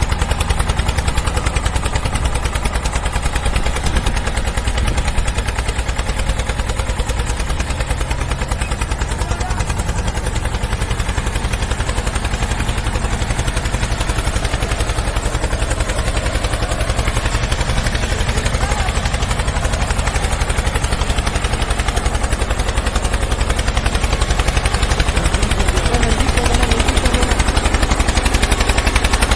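An engine running steadily, with a rapid, even pulsing beat over a low hum.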